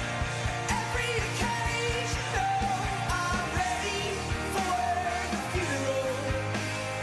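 Background pop-rock song with a singing voice over a steady drum beat.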